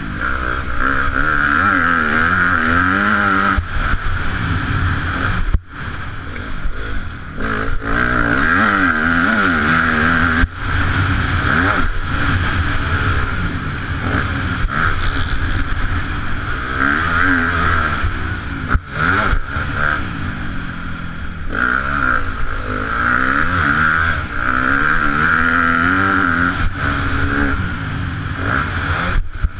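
Yamaha YZ250F motocross bike's single-cylinder four-stroke engine being ridden hard, its pitch rising and falling again and again through throttle blips and gear changes. A few brief breaks cut into it.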